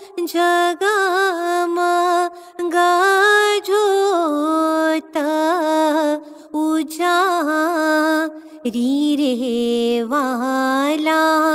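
A woman singing a ginan, an Ismaili devotional hymn, as a solo voice in long ornamented phrases with short breath pauses; about two-thirds of the way through, her melody drops to a lower pitch.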